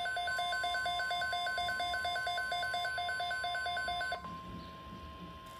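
A weather alert radio sounding its alert: a rapid electronic beeping, about five beeps a second, over a steady single tone from the broadcast, the NOAA Weather Radio 1050 Hz warning alarm tone. The beeping stops about four seconds in, and the steady tone carries on, quieter.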